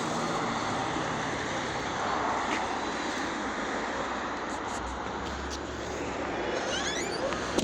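Steady outdoor traffic noise, with a low rumble building in the middle and a few faint clicks. A short run of high chirps comes near the end.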